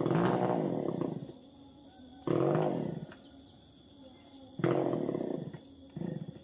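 Chainsaw up a tree trunk, running to about a second in, then revved twice in short bursts that rise and fall away within a second each. Birds chirp in the quieter gaps.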